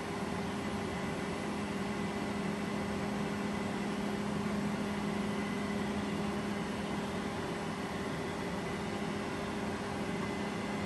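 Steady machine hum of a DIY laser powder-bed metal 3D printer setup running a print: a low drone with a fainter high whine over an even hiss.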